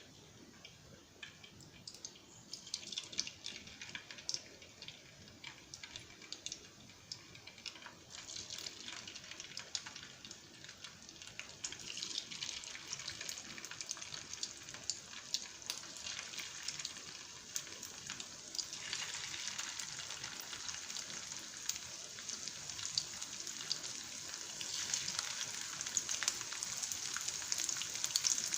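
Marinated chicken strips sizzling and crackling in hot sunflower oil in a pan. The sizzle grows louder in steps as more pieces are dropped in one at a time.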